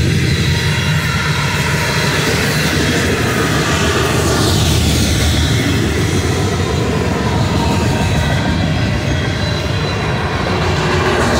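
Freight cars of a Union Pacific manifest train, covered hoppers and tank cars, rolling past steadily with a continuous rumble of wheels on rail. Thin high wheel squeal comes and goes over it.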